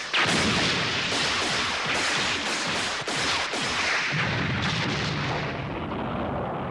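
Animated fight sound effects: a rapid, continuous barrage of energy-blast shots and explosions, starting with a sharp blast and going on with a low rumble underneath from about four seconds in.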